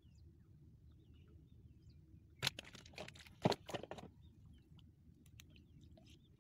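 A wet gill net and its catch handled in a wooden boat: a quick cluster of sharp knocks and splashy rustles, about two and a half to four seconds in. Faint bird chirps sound over a low steady rumble.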